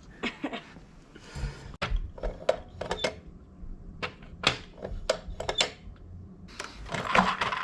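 Irregular sharp clicks and knocks of brass cartridge cases being handled and primed for reloading, about a dozen spread through the stretch, with a busier clatter near the end.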